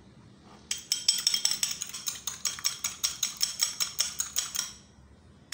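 A raw egg beaten with a metal fork in a ceramic bowl, the tines clicking quickly against the bowl, about seven clicks a second. The beating starts about a second in and stops near the end.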